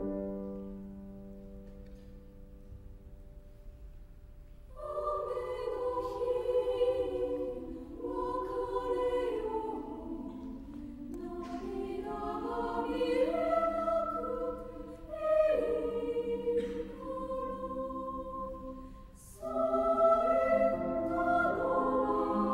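A held piano chord fading away, then a mixed choir entering about five seconds in and singing in harmony. The choir pauses briefly near the end before coming back in.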